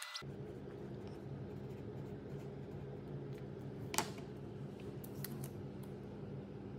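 Light paper handling over a steady low room hum: small ticks and rustles as sticky-note labels are picked up and peeled on a tabletop, with one sharper click about four seconds in.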